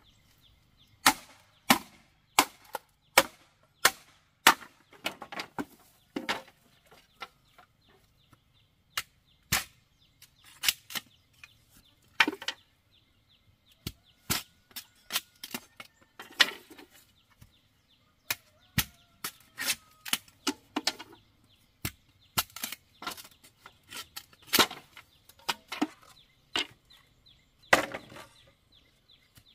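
Bamboo being chopped: sharp, irregular chopping strikes, one or two a second with short pauses between runs.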